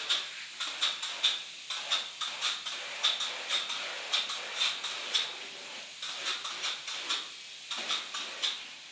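Closed-cell spray foam gun hissing as foam is sprayed into a stud wall, a steady hiss with sharp spurts about two or three times a second, fading away at the end.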